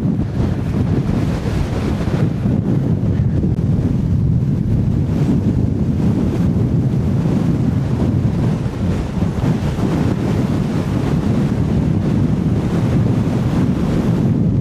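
Very strong wind buffeting the microphone: a loud, continuous low rumble that rises and falls slightly with the gusts.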